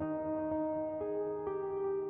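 Soft instrumental background music: sustained chords, with a new note coming in about every half second.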